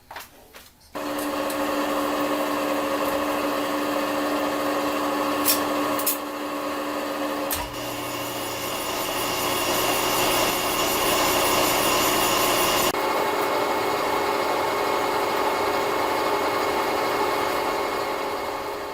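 Metal-cutting machine noise, most likely a CNC lathe machining: a steady whine with several held tones over a grinding hiss. It starts abruptly about a second in, changes pitch after a sharp knock midway and again a few seconds later, then fades near the end.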